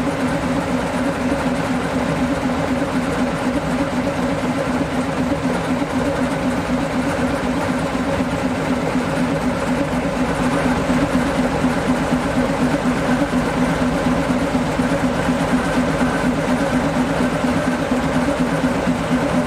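TU7A narrow-gauge diesel locomotive's V12 diesel engine running at a steady idle, getting a little louder about halfway through as the locomotive moves off slowly.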